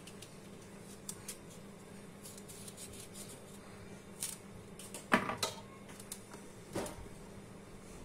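A knife cutting chunks from a piece of raw pumpkin held in the hand, with soft slicing clicks, and pieces dropping into a stainless steel pot: the loudest hit about five seconds in, another near seven seconds.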